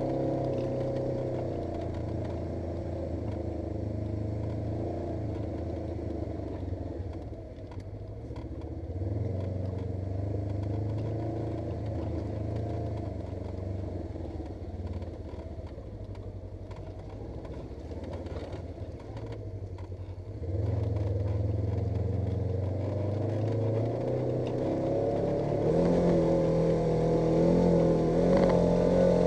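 Polaris RZR 900 S side-by-side's twin-cylinder engine running under varying throttle, louder from about two-thirds of the way in and picking up again near the end.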